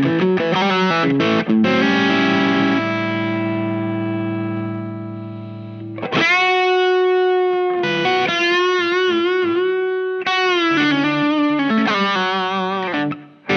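P90-equipped Larrivee RS-2 electric guitar played distorted through a Visual Sound Jekyll & Hyde V1 drive pedal. A few quick chords lead into a chord left ringing and fading, then a held lead note with wide vibrato, and finally a busier run of notes and chords that stops just before the end.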